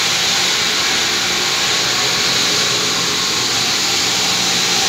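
A bank of vertical inline water pumps running: a loud, steady machine whir with a strong high hiss over a faint low hum, unchanging throughout.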